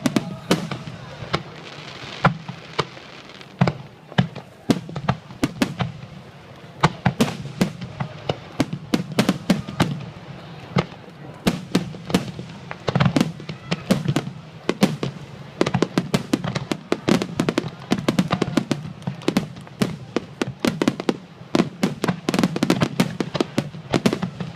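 Aerial fireworks shells bursting in quick, irregular succession: many sharp bangs, several close together at a time, with crackling between them.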